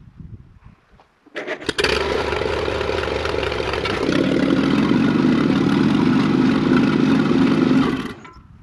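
1948 Silver King Model 42 tractor engine cranked and catching about a second and a half in, then running, louder and deeper from about four seconds in, and switched off near the end.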